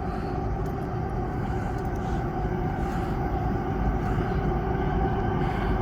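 Diesel locomotives of a Union Pacific manifest freight train approaching: a steady low rumble that grows a little louder.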